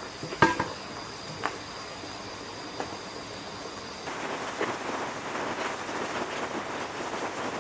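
A few sharp clicks and knocks from the sheet-metal generator terminal box and its cover being handled, the loudest about half a second in. After about four seconds a steady crackling hiss full of small ticks takes over.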